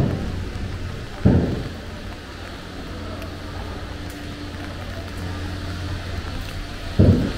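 Heavy thuds of boatyard work, one at the start, another about a second later and a third near the end, over a steady low hum.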